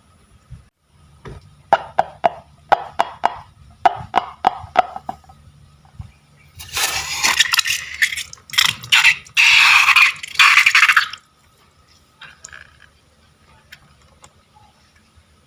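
Slime-making materials being handled: a string of sharp clicks and taps, then about four seconds of loud crackling with short breaks.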